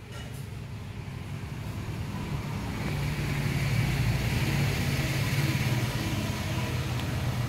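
A motor engine running steadily with a low hum, growing louder over the first three seconds and then holding level.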